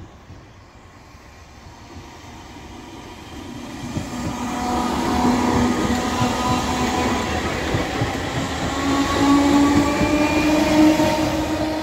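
Merseyrail Class 507 electric multiple unit passing close over the level crossing. A whine from its motors rises slowly in pitch over the rumble and clatter of its wheels on the rails. It grows loud from about four seconds in.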